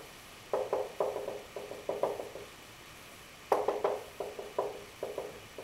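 Marker writing on a whiteboard: short strokes of the marker tip in two runs, with a pause of about a second between them.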